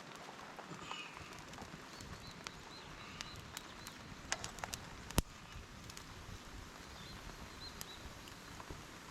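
Steady hiss of rain with scattered sharp taps and clicks of drops, one louder tap about five seconds in, and a few faint bird chirps.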